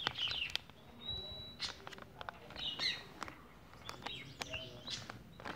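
Birds chirping off and on, with one short held whistle about a second in, over faint crinkles and small taps of a paper sheet being folded and creased by hand.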